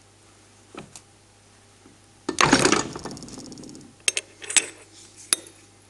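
Steel gate hinge being handled and lifted out of a fly press's V-block tooling: a loud metallic scraping rattle about two seconds in that lasts over a second, then a few sharp metal clicks and taps.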